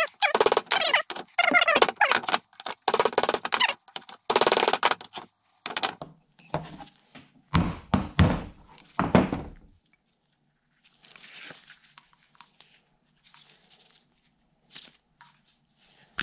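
Claw hammer striking a brass punch to drive a rusted, seized sealed bearing out of a John Deere mower deck spindle housing. There is a fast run of ringing metal blows for about six seconds, then four heavier, spaced blows, then only a few faint taps.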